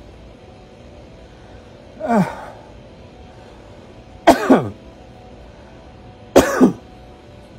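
A man coughs three times, about two seconds apart, with his head down in the proning position. The first cough is weaker; the last two are louder double coughs. These are deliberate coughs after deep breaths, part of a proning breathing exercise meant to move secretions out of the lungs.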